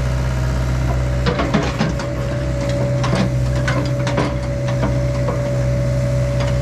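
John Deere 85G excavator's diesel engine running steadily under load, with a steady whine. From about a second in, many sharp cracks and snaps come through as wood and roots break while the stump is ripped out.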